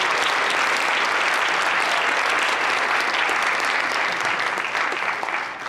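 Audience applauding, a dense, steady clapping that starts to fade near the end.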